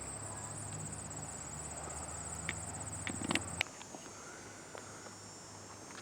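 Insects chirping in a steady, rapidly pulsing high trill that cuts off about three and a half seconds in, with a few faint clicks over a low background hum.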